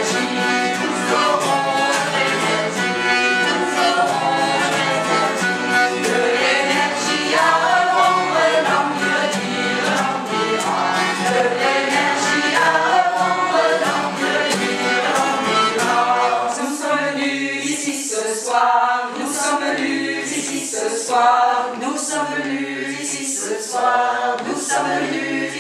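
Small mixed choir singing in harmony, accompanied by an acoustic guitar and a small plucked string instrument. About two-thirds of the way through, the accompaniment drops back and the voices carry on nearly alone.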